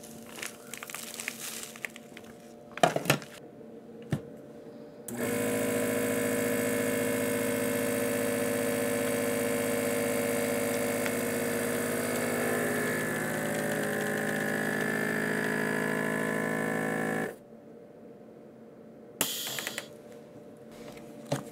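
Countertop vacuum sealer's pump running steadily for about twelve seconds as it draws the air out of the bag, then cutting off suddenly. A few clicks of handling come before it starts, and a short rustle near the end.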